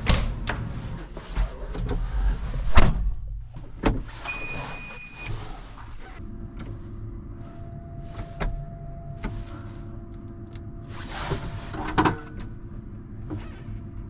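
Vehicle door and cab clunks and knocks, with a brief electronic chime about four seconds in, then a steady low hum with a few more knocks.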